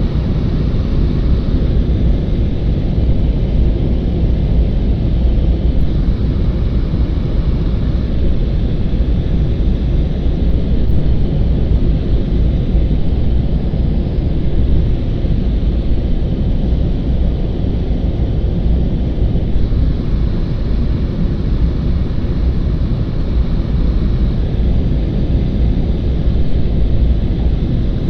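Steady loud rumble of a small propeller aircraft's cabin in flight: engine and airflow noise, unchanging.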